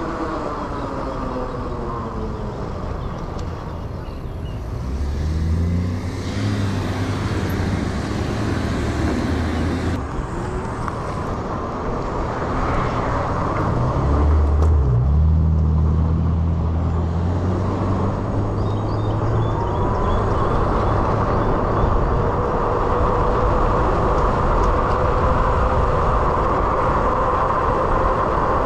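Road traffic: motor vehicle engines running close by, with a steady rushing noise. From about twenty seconds in, a whine rises in pitch and then holds steady.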